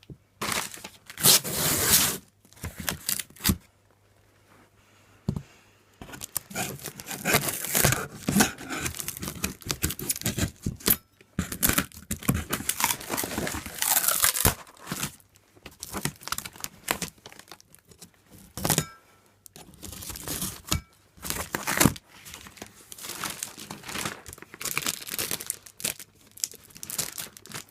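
Packaging being cut and torn open by hand: irregular ripping, scraping and crinkling, with a lull of a couple of seconds a few seconds in.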